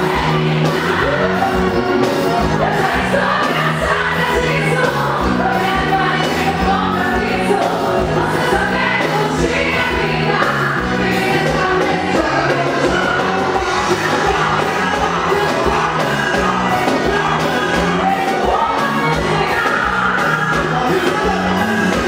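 Live band music over a loud stage sound system: a singer over accordion and a steady drum beat.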